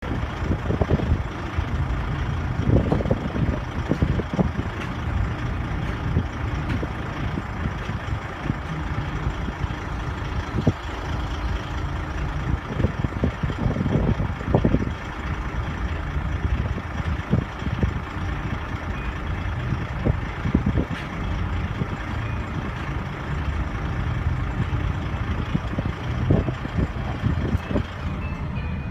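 Strong wind buffeting the microphone in irregular gusts over a steady low rumble, with a faint constant engine-like hum underneath.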